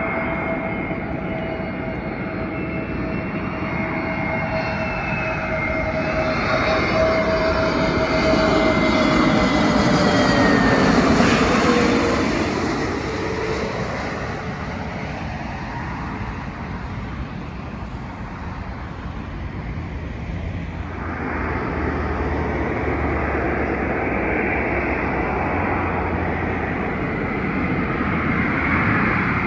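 Airbus A320neo jet airliner passing low overhead on final approach. Its engine noise builds to a peak about ten seconds in, the engine whine drops in pitch as it passes, and then the noise fades. Jet noise builds again in the last third as a second airliner approaches.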